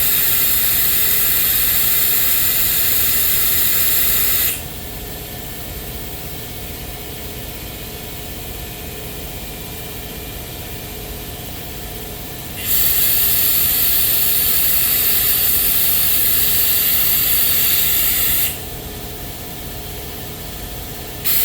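Compressed-air powered vacuum hissing as it sucks dirty brake fluid out of a master cylinder reservoir. It is triggered in bursts: on for about four and a half seconds, off, on again for about six seconds, then on once more near the end. A steady, quieter hum runs underneath throughout.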